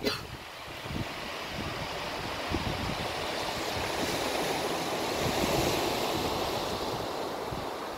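Sea surf washing ashore: a hiss of breaking waves that swells to a peak about halfway through and then eases off, with wind buffeting the microphone. A short bump sounds right at the start.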